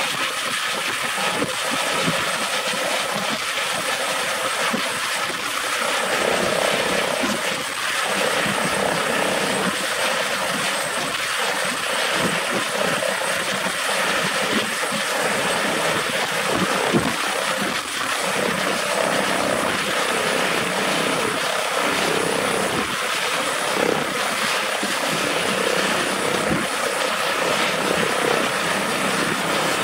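Airbus H145 D3 five-bladed helicopter running steadily, a thin high turbine whine over dense rotor noise, as it settles from a low hover onto the pad and keeps its rotors turning on the ground.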